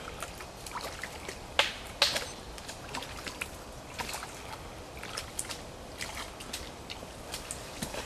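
Rubber boots wading through a shallow stream: water sloshing and splashing with each step, with many small sharp splashes over a steady trickling haze. Two louder, sharper sounds come about one and a half and two seconds in.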